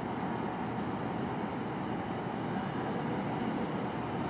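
AnsaldoBreda P2550 light-rail train approaching through a tunnel: a steady low rumble with a faint, rapidly pulsing high tone above it.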